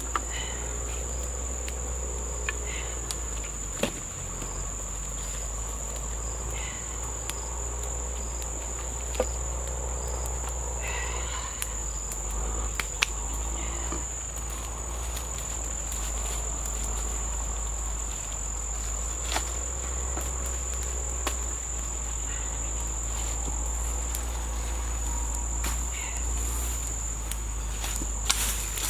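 Insects chirring in one steady, unbroken high-pitched tone, with a few scattered sharp clicks and knocks over it.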